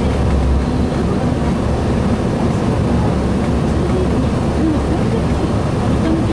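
Steady low rumble inside a 2007 Gillig Phantom transit bus, its Cummins ISL 280 inline-six diesel running at idle while the bus stands still.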